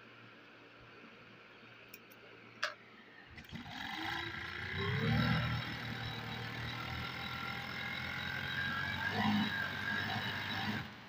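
Pegasus industrial overlock sewing machine stitching a fabric edge: after a low hum and a click, the motor speeds up with a rising whine about three and a half seconds in, runs steadily while stitching, and stops suddenly near the end.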